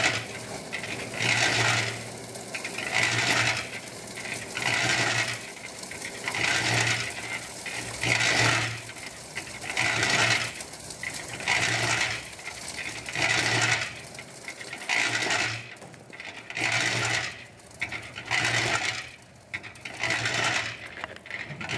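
Small drum concrete mixer running, with a metallic clatter and grind that swells and fades about every 1.7 seconds as the drum turns.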